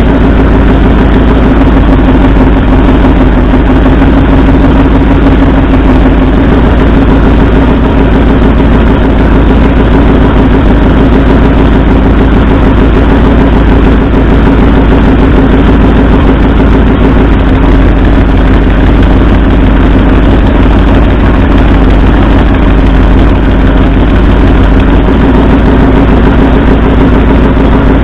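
Ford 351 Cleveland V8 idling unevenly on two dead cylinders while its spark plug wires are pulled one at a time in a cylinder contribution test. The idle note shifts slightly partway through.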